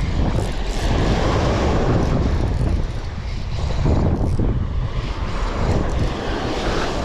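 Small fishing boat's engine running steadily under way, with wind buffeting the microphone.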